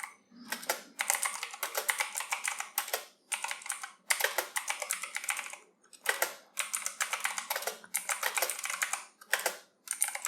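Fast typing on a computer keyboard during a timed typing test. The keystrokes come in quick runs of one to three seconds with short pauses between them.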